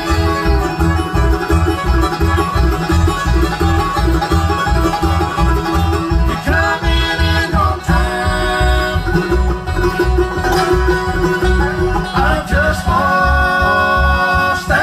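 Bluegrass band playing live through a PA system: banjo rolls out front with strummed acoustic guitar over a steady bass beat.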